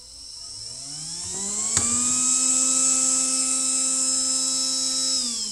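Small heatsink cooling fan of an inverter spinning up with a rising whine, running steadily at speed, then starting to wind down near the end. It has been switched on by the board's temperature sensor being heated. A single click a little before two seconds in.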